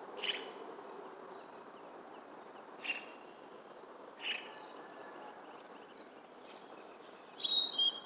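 Outdoor ambience: a steady background noise with a few short bird chirps, spaced out, then a louder burst of bird calls near the end.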